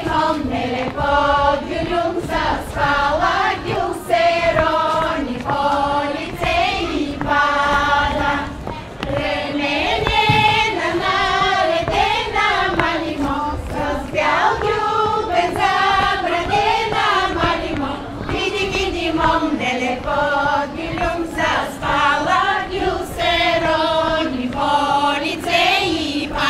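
Bulgarian women's choir singing a folk song in unison, one melody line carried by many voices in short repeated phrases.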